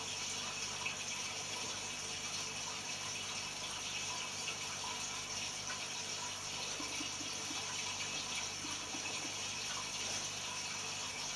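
Steady running water of a home aquarium, most likely the filter's return flow splashing into the tank, an even hiss with faint small ticks.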